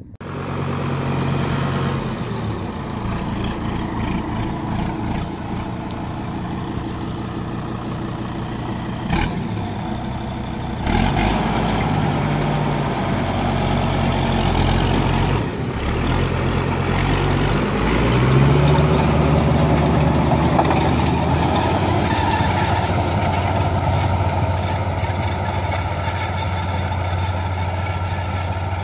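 Farm tractor's diesel engine running as it pulls a three-row ridge-forming plastic-mulch layer, a steady hum whose pitch shifts a few times midway, rising once.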